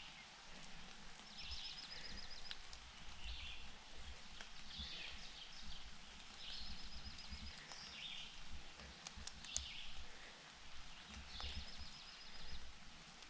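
Songbirds singing, one repeating a short, high, rapid trill about every five seconds among other brief high calls, over a steady low rumble of outdoor noise.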